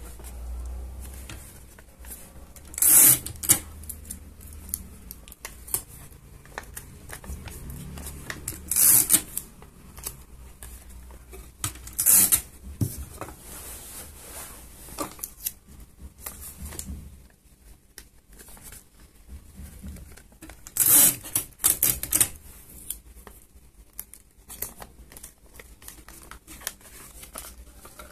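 Paper and card being handled and pressed together, broken several times by short, loud, sharp rips of clear sticky tape being pulled off a dispenser and torn.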